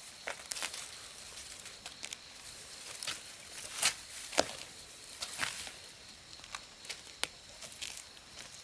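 Irregular light clicks, taps and rustling, with a couple of sharper knocks in the middle.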